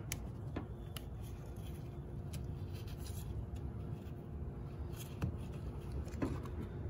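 Faint handling sounds: a nitrile-gloved hand gripping and twisting the plastic cap of a brake fluid reservoir, with a few light clicks over a low steady background.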